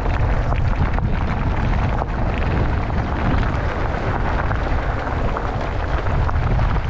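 Wind buffeting the microphone as a mountain bike rides down a gravel track, a dense low rumble with the crunch of tyres on loose gravel and small rattles and clicks from the bike.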